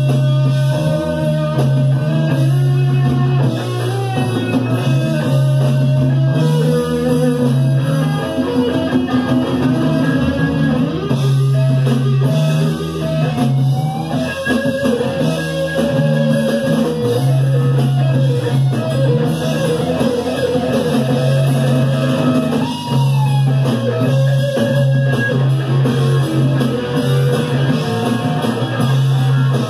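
Live rock band playing an instrumental passage: electric guitar lines with bent, wavering notes over a steady bass and drum kit, loud, as heard in the room by two microphones at the mixing desk.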